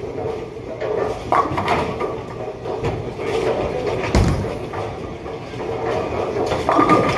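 Bowling alley sound: a bowling ball released and landing with a sharp thud on the wooden lane about four seconds in, over the steady rumble and knocks of balls on neighbouring lanes. A clatter of pins being struck builds near the end.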